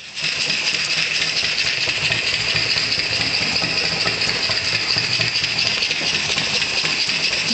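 Gas-fired live-steam model of a De Winton locomotive running: a steady hiss over a low, rapid throbbing.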